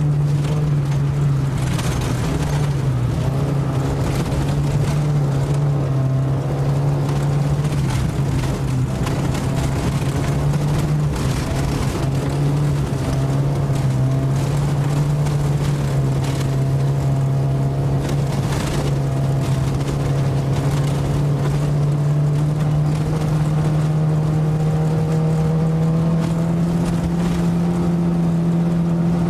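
Ice-racing car's engine running hard under load, heard from inside the car, a steady drone whose pitch dips briefly a couple of times and climbs slightly near the end.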